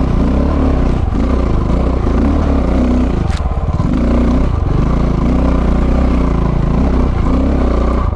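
Single-cylinder 690 dual-sport motorcycle being ridden off-road, the engine rising and falling with the throttle and easing off briefly several times. There is one sharp knock about three seconds in.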